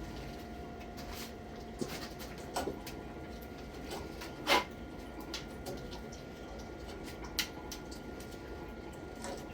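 Scattered light clicks and knocks of tools or parts being handled, the loudest a sharp knock about four and a half seconds in, over a faint steady hum.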